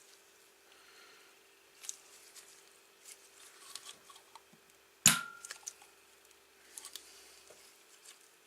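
Small metal engine parts and bolts being handled and set in place on a 125cc motorcycle engine: light clicks and rattles, with one sharp metallic clack about five seconds in.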